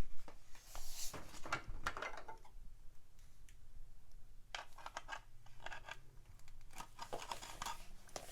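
Small plastic toy parts and a sticker sheet being handled: scattered light clicks, taps and scratchy rustles, busiest about a second in and again near the end.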